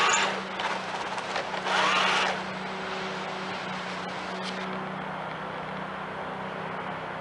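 Small radio-controlled toy tank running with a steady electric hum, which fades out about five seconds in. There are two brief louder sounds near the start and about two seconds in.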